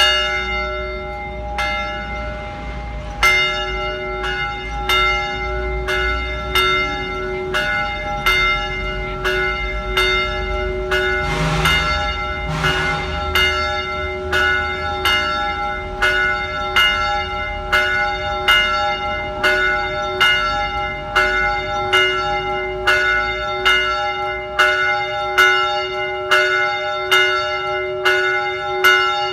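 Church bell tolling, struck over and over at about one stroke a second, each stroke ringing on into the next so the bell's hum never dies away.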